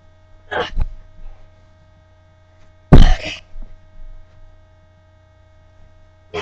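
A child struggling inside a mesh laundry hamper on a carpeted floor: short noisy scuffles, with the loudest burst about three seconds in, over a steady electrical hum.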